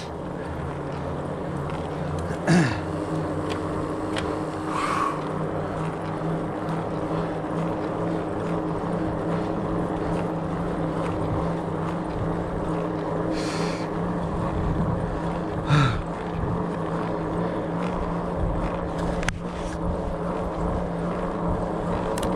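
Fat bike ridden along dirt singletrack: the wide knobby tires and drivetrain make a steady drone with the general rattle of the ride. Two short, louder sounds with a falling pitch break through, about two and a half seconds in and again near sixteen seconds.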